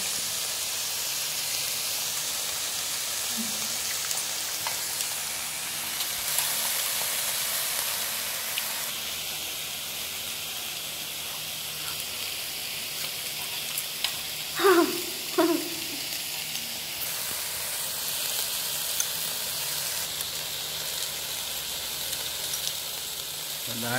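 Beef sizzling on a hot barbecue pan, a steady frying hiss. Two short voice-like sounds stand out briefly about halfway through.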